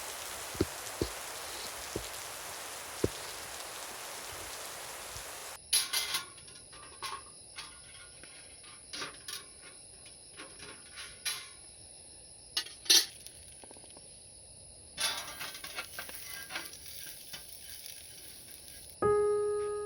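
Steady rain with a few drips tapping for the first six seconds or so. Then, after a sudden change, scattered clinks and knocks of metal cookware and utensils at a charcoal grill, with a short burst of hiss around fifteen seconds in. Piano music starts just before the end.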